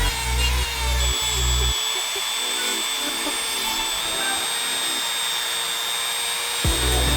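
Electronic background music with a deep bass beat that drops out about two seconds in and comes back near the end. A steady high-pitched whine and hiss run underneath.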